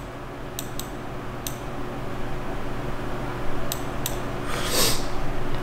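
Computer room hum from a desk setup, steady, with a few faint sharp clicks of a mouse as a Photoshop brush is worked, and a short hiss a little before the end.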